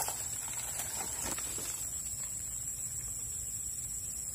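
Swamp ambience: a steady high-pitched insect drone over a low rumble, with a few faint clicks.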